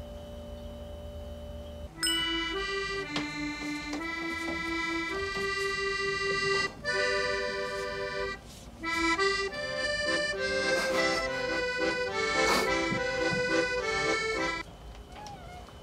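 Background music led by an accordion playing a melody. It starts about two seconds in, pauses briefly twice, and stops shortly before the end.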